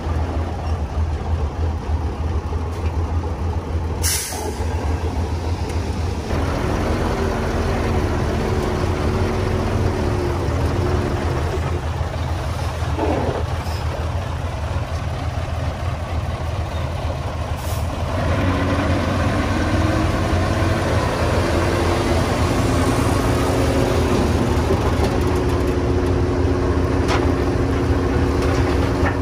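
Heavy diesel earthmoving machinery running steadily, with a low engine hum throughout. Its note picks up a pitched whine from about seven to eleven seconds, and again from about eighteen seconds, when it also grows louder. A short sharp burst of noise comes about four seconds in.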